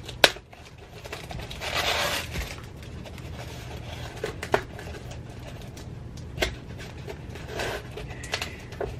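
Small razor knife cutting and scraping at the lid seam of a styrofoam container: scattered clicks and taps, with a longer scrape about two seconds in.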